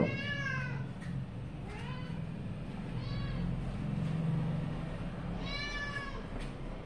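A cat meowing four times in short, arching calls, the first and last the clearest.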